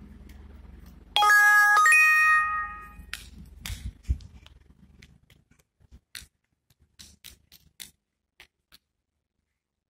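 A two-note chime rings out about a second in, each note clear and ringing before fading over about a second, followed by scattered light taps.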